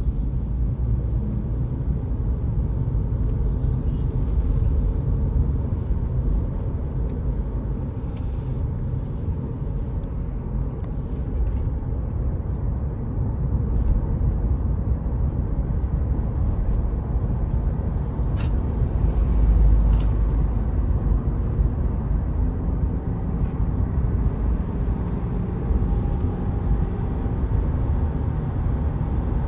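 Steady low rumble of a car driving along the road, engine and tyre noise, with a couple of brief sharp ticks about two-thirds of the way through.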